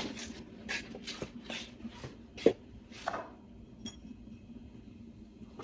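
Quiet light knocks and handling sounds with faint footsteps, with one sharper knock about two and a half seconds in.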